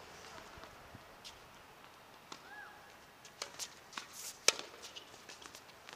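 Tennis rally on an outdoor hard court: light footsteps and shoe scuffs, then one sharp racket-on-ball hit about four and a half seconds in.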